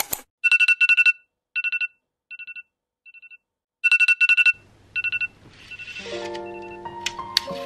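Electronic wake-up alarm beeping in short bursts of rapid, high-pitched beeps that drop away faint in the middle and come back loud. Soft music with sustained notes comes in over it after about six seconds.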